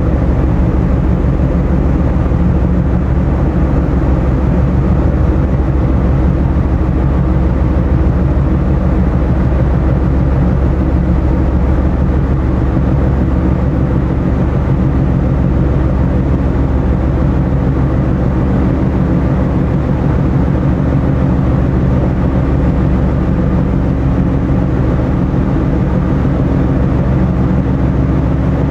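A ferry's diesel engines running steadily underway, a deep, even drone with several steady low tones.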